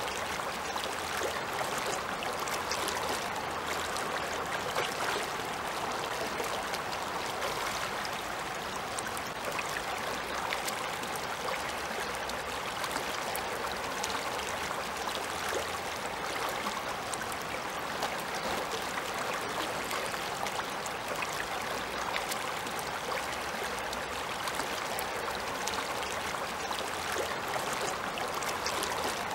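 Shallow river running fast over pebbles and stones: a steady babble of rushing water, with a fine crackle of small splashes.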